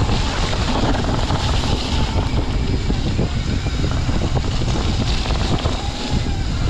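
Wind rushing over the microphone of a mountain bike descending a muddy dirt trail at speed, mixed with the constant rumble and rattle of the tyres and bike over the wet ground: a loud, steady rush.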